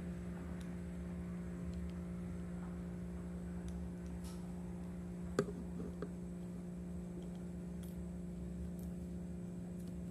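Faint clicks of a Daiwa spinning reel's body and small parts being handled and fitted during disassembly, with one sharper click about five seconds in, over a steady low hum.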